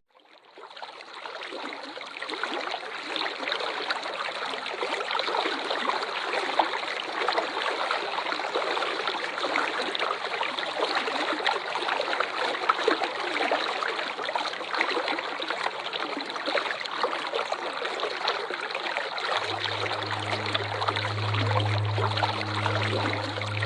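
Steady rushing of a waterfall, fading in from silence over the first two seconds. About 19 seconds in, a low steady hum joins it.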